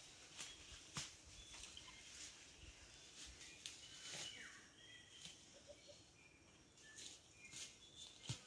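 Faint rural ambience with scattered short, high bird chirps, one sliding downward about four seconds in. Two sharp clicks stand out, about a second in and near the end.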